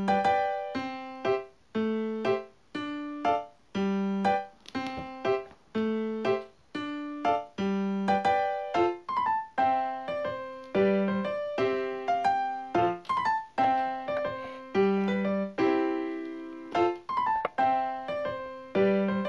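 Background music: a light keyboard tune of piano-like notes, each struck and then fading, in an even, bouncy rhythm.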